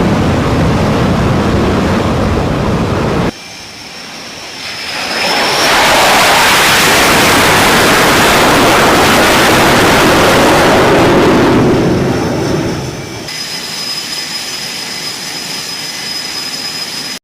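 Jet aircraft engines in several edited shots: a deep rumble that cuts off about three seconds in, then a high whine swelling into a loud rush that fades after several seconds, and a steady high engine whine near the end.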